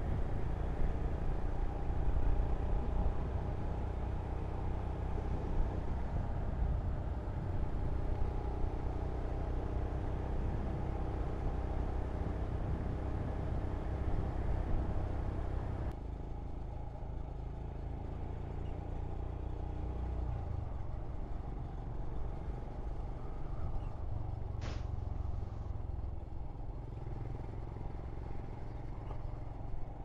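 Royal Enfield Scram 411's single-cylinder engine running steadily as the motorcycle rides along, mixed with wind noise on the action camera's microphone; both become quieter about halfway through.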